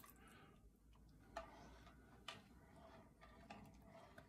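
Near silence with a few faint clicks of a metal spoon against an enamelled Dutch oven as it stirs a thickening stew.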